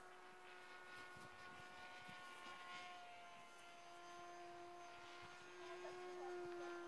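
Faint, steady whine of a HobbyKing Bixler2 model plane's electric motor and propeller in flight. It holds one pitch, dipping slightly about halfway and rising a little near the end.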